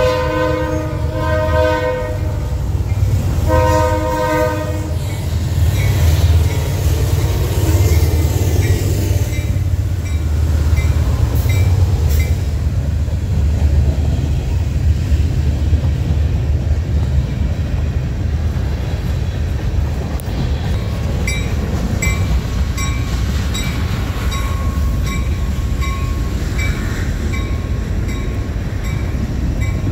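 A train locomotive's chime horn sounds three blasts in the first five seconds, the third the longest. The train then runs past with a heavy low rumble, and from about two-thirds of the way through the wheels click regularly over the rail joints.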